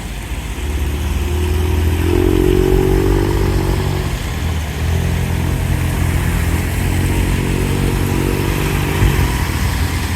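Motorbike engines passing close by: one swells about two seconds in and a second runs from about five seconds to nine, over a steady hiss of rain.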